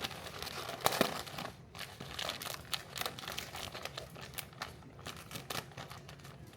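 A bag of pasta crinkling and crackling as it is handled and pulled at to get it open, in a rapid, irregular string of sharp crinkles. The bag is hard to open.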